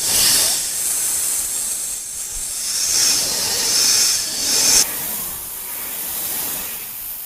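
Snake hissing: a loud, breathy hiss that swells and eases several times, then carries on a little softer for the last couple of seconds.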